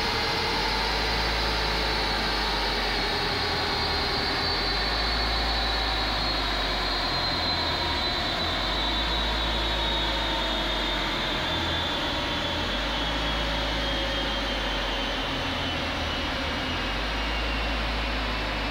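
Steady mechanical running noise from the dyno cell, with a whine that falls slowly in pitch throughout and a deep hum underneath that swells and drops every couple of seconds.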